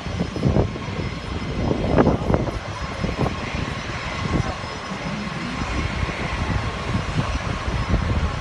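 Airplane engine noise: a steady rumble with a faint steady whine, broken by a few short louder spikes in the first few seconds.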